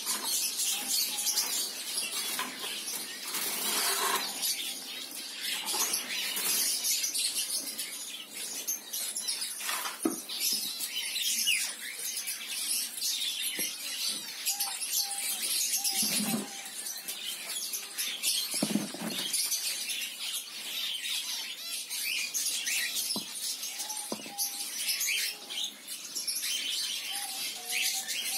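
A colony of zebra finches chirping and calling over one another without pause, with short repeated beeping call notes and wings fluttering. Two brief soft knocks sound about two-thirds of the way in.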